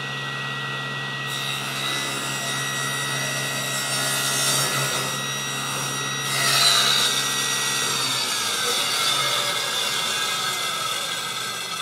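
SawStop table saw running at full speed with a steady whine, then ripping a short length of 2x4 as it is fed between the blade and the rip fence. The cutting noise comes in about a second in and grows louder through the cut.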